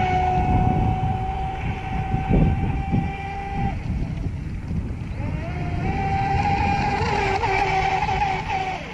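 Atomik Barbwire XL RC speedboat's electric motor on a 3S battery whining steadily at speed. The whine fades a little past three seconds in, climbs back about two seconds later, and cuts off near the end.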